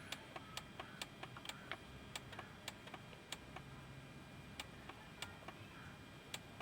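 JBL Cinema SB400 subwoofer crackling: faint, irregular sharp clicks, two or three a second, over a low hiss. It is an amplifier-circuit fault that persists with a replacement speaker fitted.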